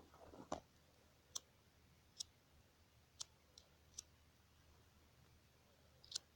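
Near silence, broken by about six faint, sharp clicks at irregular intervals of roughly half a second to a second.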